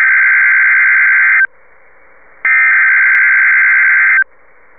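EAS/SAME digital header bursts broadcast over NOAA Weather Radio, sent at the start of an Amber Alert (Child Abduction Emergency) message. Two loud buzzing data bursts about 1.8 seconds long, separated by about a second of faint static.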